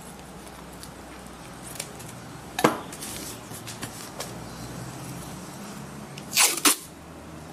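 Masking tape ripped off the roll in two quick pulls about six and a half seconds in, after one shorter, sharp sound near the three-second mark. A steady low hum runs underneath.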